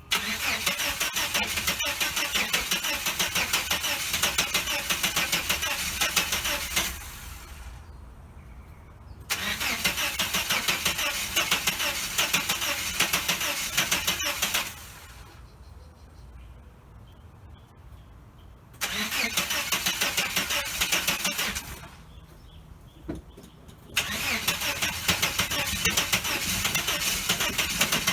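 Starter motor cranking a 1989 Chevrolet S10 Blazer's engine in four long attempts with short pauses between. The engine never catches: it cranks but won't start.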